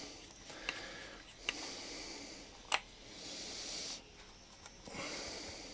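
Faint clicks and scrapes of a small flat-blade screwdriver working in a Tecumseh carburettor as the brass main jet is unscrewed, with a sharper click a little under three seconds in. Soft breathing close to the microphone comes and goes.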